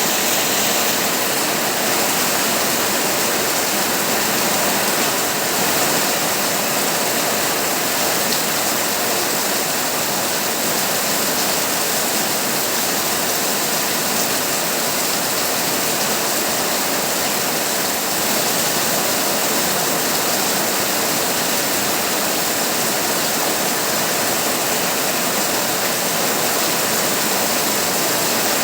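Heavy rain pouring steadily on a tin roof.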